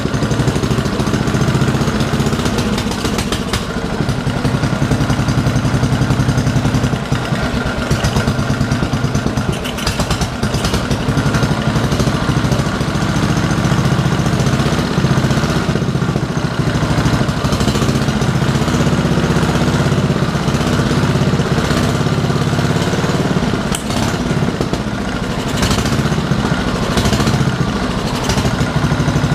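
Vintage cast-iron Briggs & Stratton 16 HP engine running on a test stand, a rapid, even firing beat that drifts up and down in speed a few times. It has just been started for the first time since being set up, on its own fuel and ignition.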